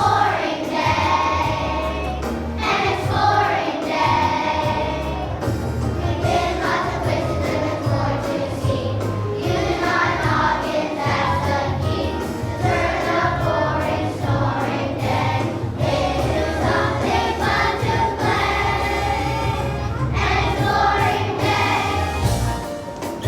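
A children's choir of second graders singing a song together, with instrumental accompaniment underneath.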